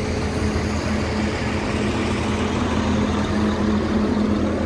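Diesel engine of a Terex AC250-1 mobile crane idling steadily with a constant hum, its power take-off engaged to drive the outrigger hydraulics.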